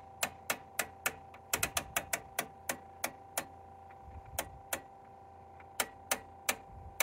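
Rotary knob on a Tektronix 465 oscilloscope, its A and B TIME/DIV switch, being turned by hand through its detents: runs of sharp clicks, several a second, broken by short pauses. A faint steady hum of tones lies underneath.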